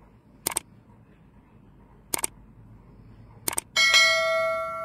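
Sound effects of a subscribe-button animation: three sharp mouse clicks, the last a quick double click. Just under four seconds in comes a bell chime that rings on with several pitches and slowly fades.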